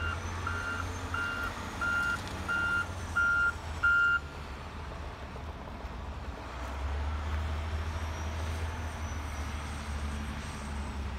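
Wheel loader's reversing alarm beeping at one steady pitch, about three beeps every two seconds, stopping about four seconds in. A deep engine rumble from the heavy machinery runs underneath and grows louder about six seconds in.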